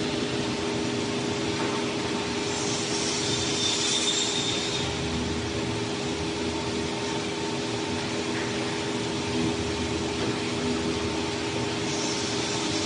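Five-axis woodworking CNC router with a water-cooled spindle running steadily: a hum of several steady tones under a continuous hiss, with louder high hissy passages about three seconds in and again near the end.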